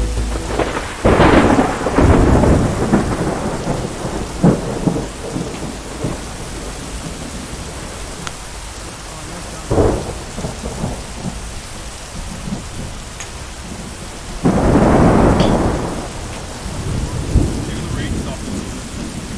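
Thunderstorm: rain falling steadily with several long rolls of thunder, the loudest about a second in and again about two-thirds of the way through.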